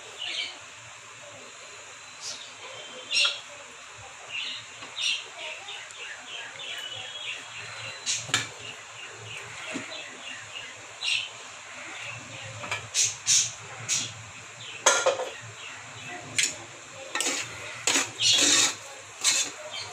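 Metal clinks and scrapes of a pressure cooker's lid being handled and opened, then a spoon stirring and scraping mutton keema against the inside of the aluminium cooker. The clinks grow thicker and louder in the second half.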